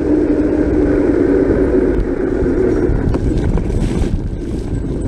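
Steady rushing noise of a mountain bike ridden downhill at speed, mostly wind on the microphone, with a steady hum that fades out about three seconds in.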